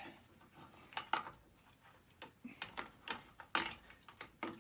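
Scattered sharp metallic clicks and clinks of hand tools on the engine as the starter is bolted on, about half a dozen irregular taps with the loudest around one second and three and a half seconds in.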